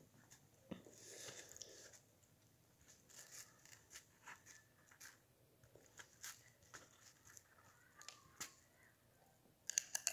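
Quiet eating sounds: a fork clicking and scraping against a plate and through food, with chewing. A few louder clicks come close together near the end.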